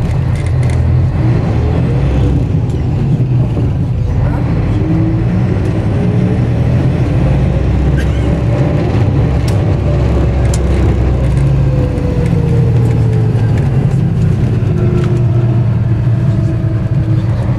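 Tour coach's diesel engine running with a steady low drone, heard from inside the coach, with a fainter whine that slowly rises and then falls in pitch as the coach moves.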